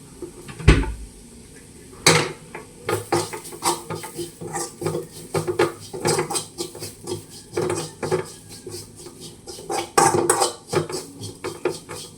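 A metal spoon scraping and clinking against a cooking pan in repeated, irregular strokes, stirring spice powder into onions. There is one low knock just under a second in.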